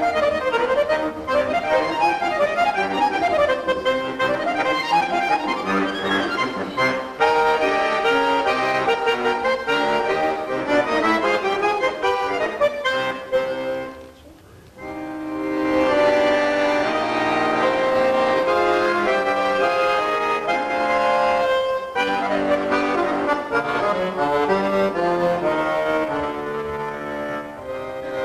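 Chromatic button accordion (bayan) played solo: quick rising and falling runs in the first few seconds, then fuller chordal passages, with a brief pause about halfway through before the playing resumes.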